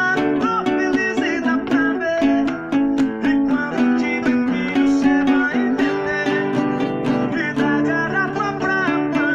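Acoustic guitar music, strummed in a steady rhythm with a melody running above the chords.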